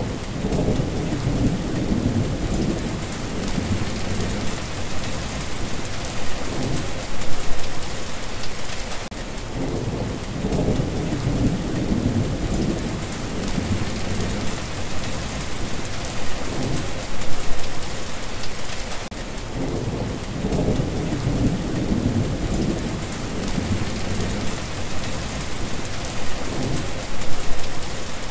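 Steady heavy rain with low rolling thunder. The thunder swells and fades again about every ten seconds.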